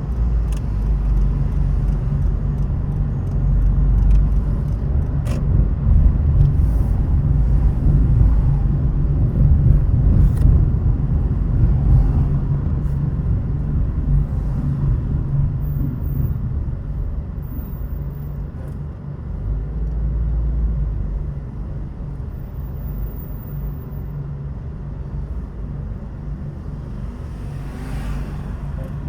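A car driving, heard as a steady low rumble of engine and tyre noise that swells and eases a little, with a few faint clicks.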